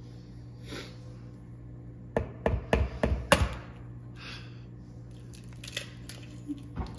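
An egg being knocked against the rim of a mixing bowl to crack it: a quick run of sharp taps a little over two seconds in, lasting about a second.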